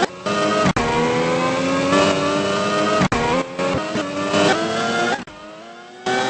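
Car engine sound revving, its pitch climbing steadily and then dropping sharply twice, like an engine accelerating through gear changes. The sound is chopped by abrupt cuts.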